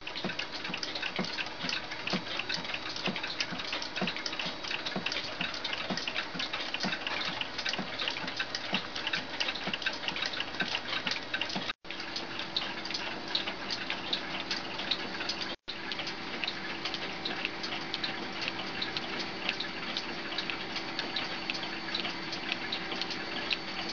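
Telavox electric clock movement ticking steadily, over a constant hiss.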